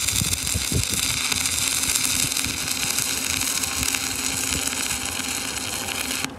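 Stick-welding arc of a 3/32-inch 7014 electrode burning on steel plate: a steady crackling sizzle with a low steady hum underneath, cutting off abruptly near the end.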